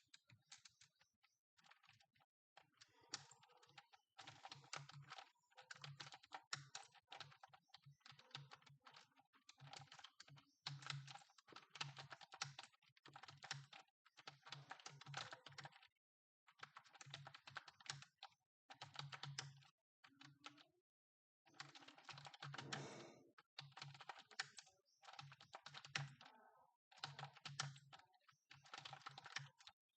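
Fast typing on a computer keyboard: rapid keystrokes in runs of a second or two, broken by short pauses.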